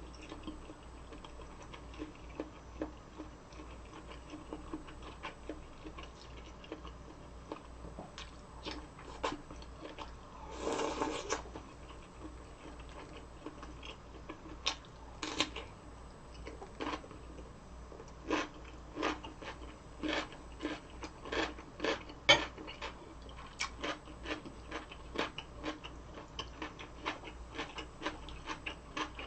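Close-miked eating: crisp kimchi being bitten and chewed, with sharp, crackly crunches that come thicker and louder in the second half. About a third of the way in there is one louder, noisy burst lasting about a second.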